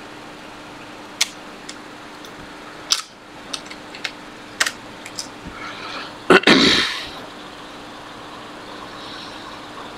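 Sharp metal clicks of a tool prying at the metal shield on an iPad Air logic board, about six spread over a few seconds, then a louder scraping clatter about six seconds in. A steady low hum runs underneath.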